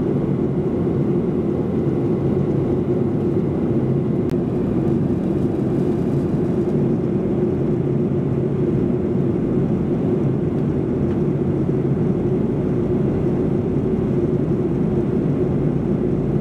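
Steady cabin noise inside a Boeing 737-800 airliner in flight: a constant low drone of its CFM56 jet engines and the airflow past the fuselage, with a steady hum running through it.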